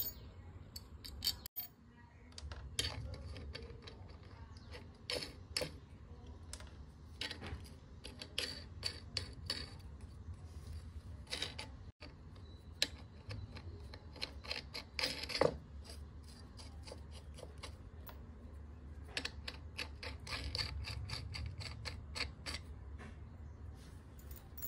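Small metallic clicks and clinks of steel spring washers and nuts being dropped onto and hand-threaded down the wheel-hub studs of a Bajaj scooter, coming in irregular runs with a sharper clink about halfway through, over a low steady hum.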